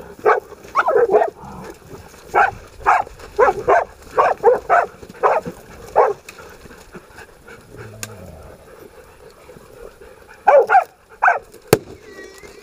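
Pig-hunting dogs barking in short bursts as they hold a wild boar, with a lull in the middle and a single sharp click near the end.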